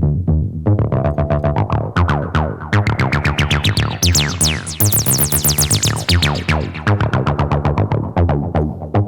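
TB-303-style acid bassline played through tube-amp-style distortion: a fast run of short synth notes, about eight a second, whose resonant filter sweeps open to a bright, buzzing peak around the middle and then closes again.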